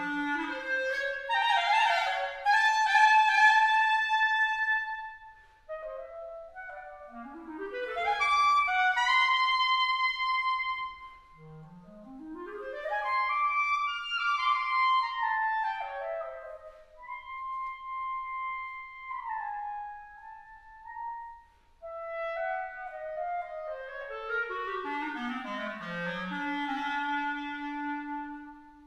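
Unaccompanied clarinet playing fast runs that sweep up and down across its range, in several phrases broken by short pauses, with some held notes and a long low note near the end.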